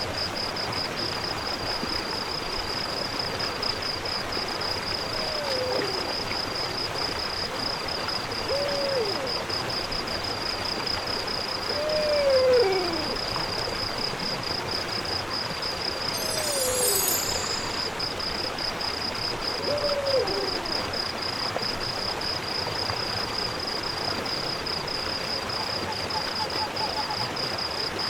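Night ambience sound effect: an owl hooting five times, a few seconds apart, each hoot falling in pitch, over a steady high insect trill like crickets and a soft hiss. There is a brief high rustle about two-thirds of the way through.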